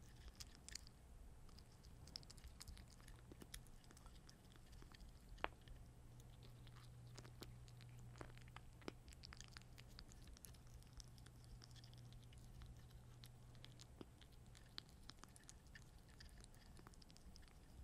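Month-old kitten chewing dry kibble wetted with water from a small wooden dish: faint, irregular crunching and clicking, with a low steady hum underneath.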